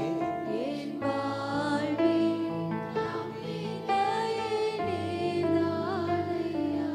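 Instrumental backing for a Tamil Christian worship song, playing between sung lines. Held chords shift every second or so, with a soft melody line above them.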